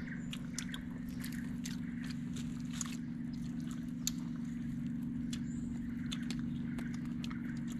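Scattered small clicks and handling noises of people eating over a steady low hum.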